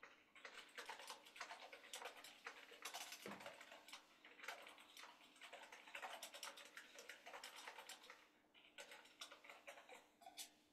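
Faint typing on a computer keyboard: rapid, irregular key clicks, pausing briefly about eight seconds in.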